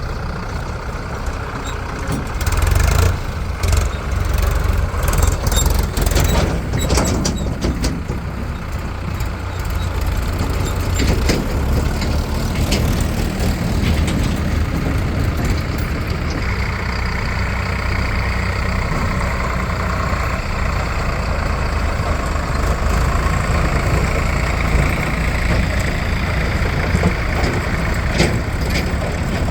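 Heavy vehicle engine running steadily, with a cluster of knocks and clanks in the first several seconds. A steady higher hiss joins about halfway through.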